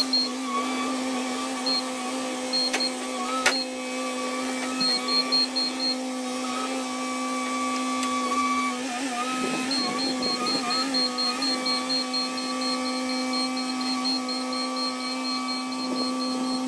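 Bobcat T66 compact track loader's diesel engine running steadily at working speed, with a steady hum from the machine, while it carries a heavy oak log on its forks. Around the middle the pitch wavers and dips briefly as the machine works under the load.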